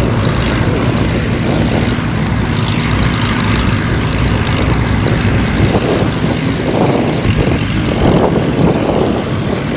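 Avro Lancaster bomber's four Rolls-Royce Merlin piston engines running at taxi power, with a steady, loud propeller drone as the aircraft rolls past.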